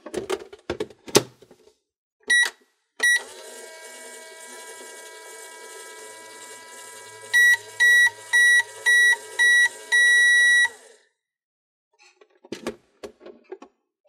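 Battery toy microwave (Just Like Home) in use. Plastic clicks as the door is shut, then two short button beeps, then a steady electronic running hum. About seven seconds in it gives five short beeps and a longer final beep, and the hum stops. Near the end there are more plastic clicks as the door is opened.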